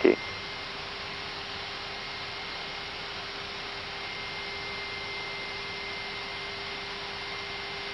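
Steady, even hiss with a faint constant hum: the background of an Airbus A320 cockpit's audio during the climb after takeoff, with the radio quiet between calls.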